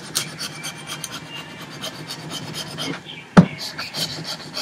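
Kitchen knife scraping and shaving the skin off a butternut squash in quick rasping strokes, several a second, then a single sharp knock a little over three seconds in.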